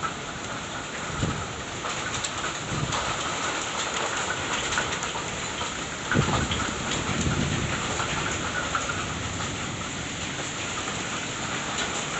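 Heavy thunderstorm rain falling steadily and hard on foliage, a fence and a patio roof, a dense hiss with spattering drops. A low rumble swells briefly about a second in and more strongly about six seconds in.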